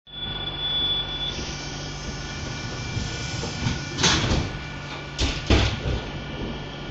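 Steady hum of a regional train heard from inside the carriage while it stands at the platform, with a high tone in the first second or so and three short whooshes about four and five seconds in.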